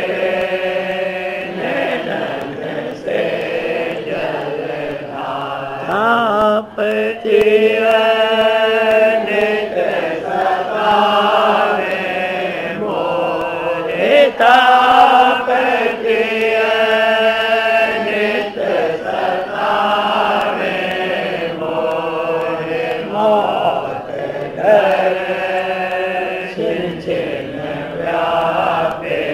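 Devotional Hindi shabad hymn sung in long, drawn-out chanted phrases with wavering held notes.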